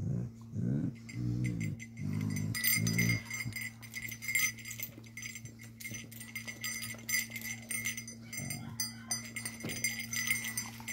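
Dog making several drawn-out whining vocal sounds in the first three seconds and once more near the end. The metal tags on its collar jingle as it shifts against the man.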